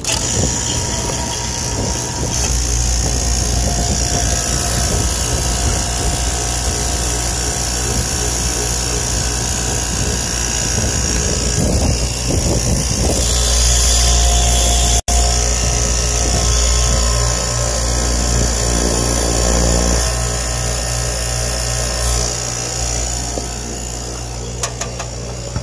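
Refrigeration vacuum pump running steadily, pulling the system down into vacuum, with a low motor hum; the sound cuts out for an instant about halfway through.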